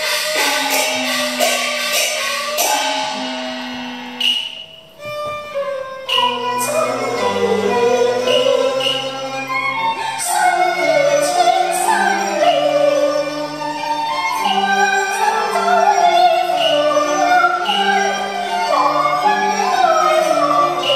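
Cantonese opera music: sharp percussion clacks in the first few seconds, a brief lull near five seconds, then the instrumental ensemble with bowed strings plays a melody. A woman's singing comes in with it.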